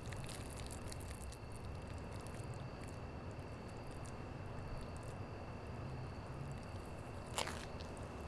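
Quiet night-time outdoor ambience: a low steady rumble under two faint steady high tones and scattered soft ticks. One short, sharper sound cuts through about seven seconds in.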